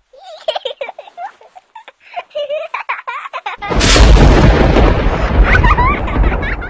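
Sound effects: a few seconds of garbled, voice-like sounds with sharp clicks, then a loud explosion-like boom about three and a half seconds in, its deep rumble running on for about three seconds.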